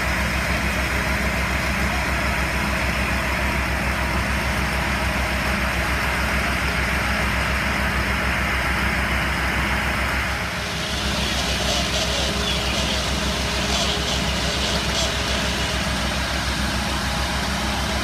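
Fire engine idling at the scene, a steady low engine drone. About halfway through, a higher hiss joins in.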